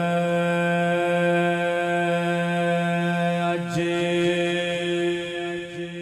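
A naat reciter's voice holding one long, steady sung note into the microphone, the drawn-out opening of an unaccompanied Punjabi naat. The note fades near the end, with a brief click partway through.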